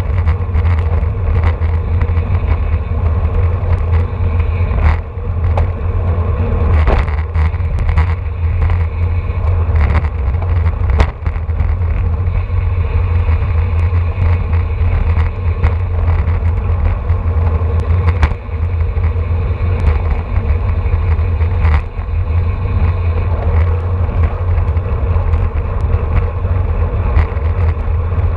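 Wind rushing over the microphone of a camera on a road bike moving at about 25 to 28 mph in a race pack, a steady, heavy low rumble with road and tyre noise under it. A few sharp clicks come through.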